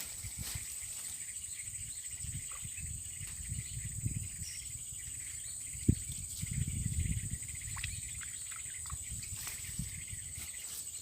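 Swamp insect chorus: a steady, high-pitched trill. Under it there is low rumbling, and one sharp knock comes about six seconds in.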